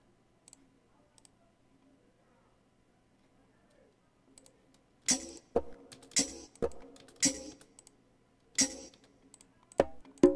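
A few faint mouse clicks, then percussion loop samples being previewed: separate drum hits with a bright, hissy top and a low thump, roughly one every half second. Near the end they turn into a quicker run of pitched conga hits.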